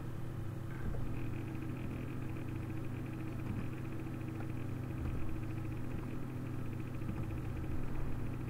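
Steady low hum with a faint, evenly pulsing high buzz over it from about a second in; no speech.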